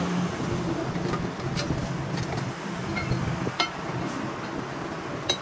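A machine running steadily with a low hum, with several sharp metallic clinks over it.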